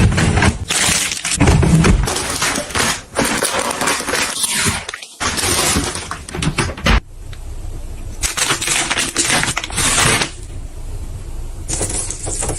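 Clinking and clattering of hard objects being handled, in dense runs of quick clicks with a few short pauses.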